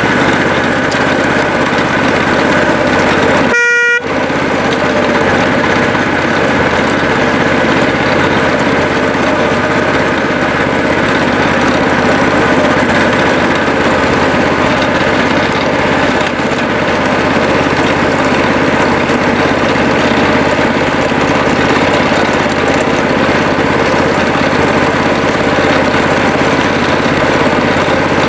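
Miniature railway locomotive's small engine running steadily as the train travels along the track. About four seconds in, the running noise breaks off for a moment and a brief horn toot sounds.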